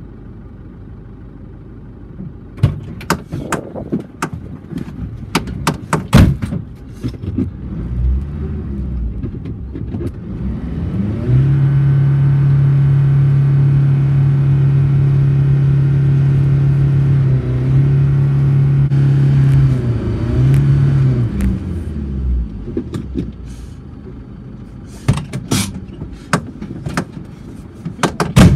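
A towing car or truck's engine revs up and holds at a steady high pitch for about ten seconds under load, hauling a stuck ATV out of a frozen ditch on a tow strap, then drops back. Sharp knocks and crunches come before and after the pull.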